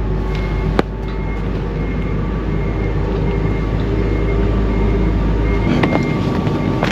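Forklift engine running steadily with a deep hum, which changes about six seconds in, and a faint high beep repeating underneath. A sharp click comes about a second in, with a couple more knocks near the end.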